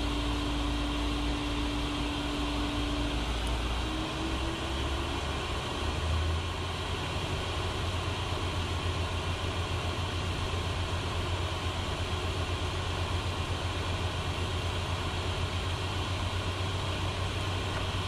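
Steady cockpit noise of a Learjet 60XR in descent: an even rush of airflow over the cockpit with the hum of its twin turbofan engines. About four to six seconds in, a low hum steps up in pitch.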